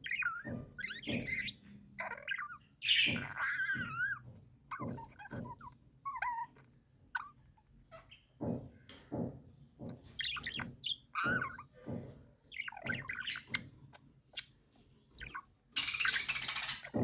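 Pet budgerigar chattering and warbling: short chirps, wavering whistled notes and clicks in quick, irregular bursts. A loud, harsh, noisy burst comes about a second before the end.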